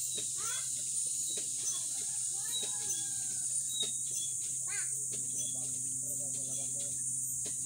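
Outdoor ambience: a steady high hiss and a low steady hum, with faint distant calls now and then and a few light clicks.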